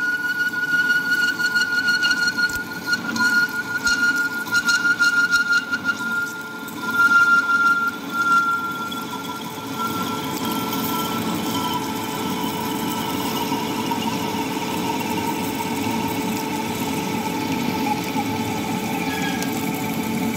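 Metal lathe running while a high-speed-steel tool bit parts off a threaded stud bolt under flowing coolant. A high whine that slowly falls in pitch rides over the machine's hum; the sound is uneven for the first several seconds, then steady.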